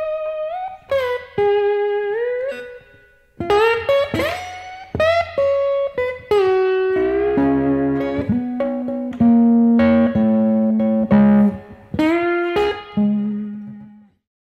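Electric guitar played with a slide in open E tuning: a blues turnaround lick of single notes, many sliding up into pitch, with a short pause about three seconds in. The lick moves down to lower notes and ends on a held low note that fades out near the end.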